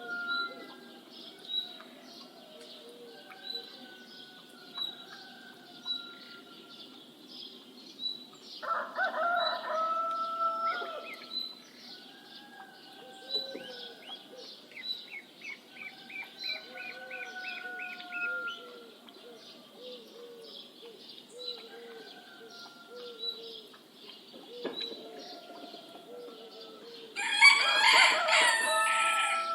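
Morning birdsong with a high chirp repeating about once a second and assorted short calls, over which a rooster crows twice: once about nine seconds in and again, louder, near the end.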